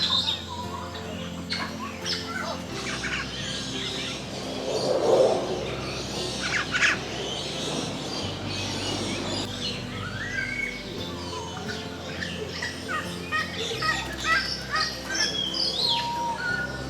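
Many birds chirping and calling in short notes and quick gliding whistles, over sustained background music chords that change every few seconds. A brief rush of noise comes about five seconds in.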